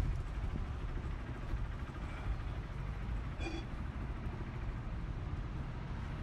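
Street traffic: a steady rumble of car engines and tyres. About three and a half seconds in there is one brief high-pitched squeak.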